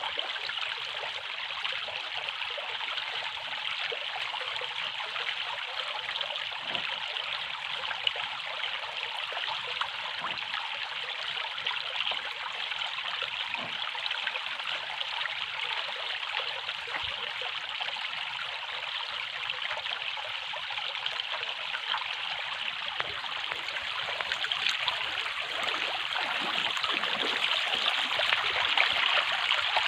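Running water trickling like a small stream, steady throughout and growing a little louder over the last few seconds.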